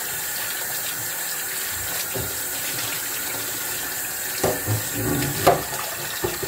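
Kitchen tap running steadily into the sink while a pan with rice stuck hard to it is washed out. A few knocks of the pan near the end, the last one the loudest.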